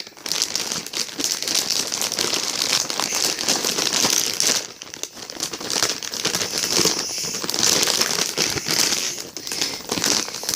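Packaging being handled and crumpled while a shipping box is unpacked: a continuous crinkling and crackling that eases off briefly twice.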